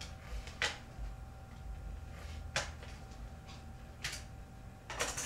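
Four sharp clicks, a second or two apart: RAM memory modules being handled and worked out of their motherboard slots, with the slot latches clacking. A faint steady hum runs underneath.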